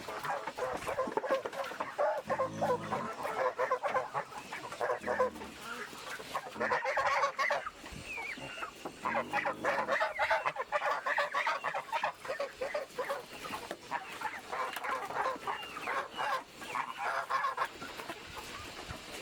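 Chickens clucking and chattering continuously.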